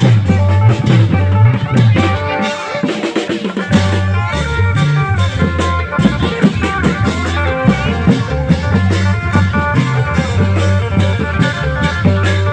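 Amplified Isan klong yao (long drum) band playing: drums under a plucked-string melody and a steady bass line. The bass drops out briefly about two seconds in, then comes back.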